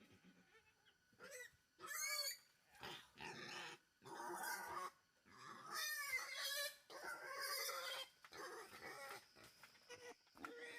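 Wild boar squealing and grunting, about eight calls in quick succession with short pauses between them.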